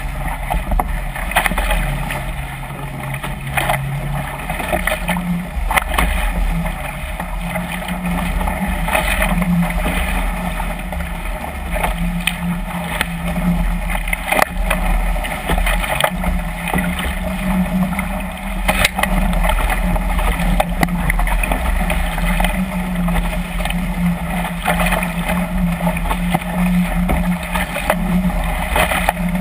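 Water rushing and splashing past the hull of a Chrysler Musketeer catamaran sailing fast through choppy waves, with spray hitting now and then and wind buffeting the microphone. A steady low hum runs underneath and grows stronger after a few seconds.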